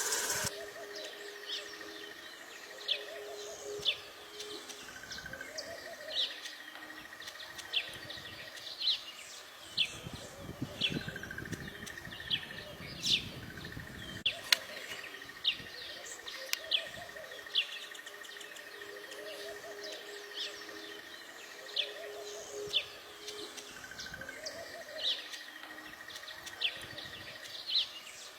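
Small birds chirping: short, sharp chirps repeating about once or twice a second over a steady high buzzing note that breaks off now and then, with softer lower calls underneath.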